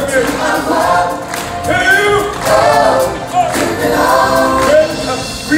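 Stage-show cast singing together in chorus over musical accompaniment.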